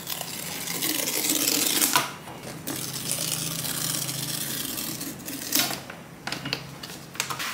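Paper pull-tab strip being torn off a MacBook Air 15-inch box: a long tearing rip that ends sharply about two seconds in, a second weaker rip, then a few light clicks and taps of the box being handled.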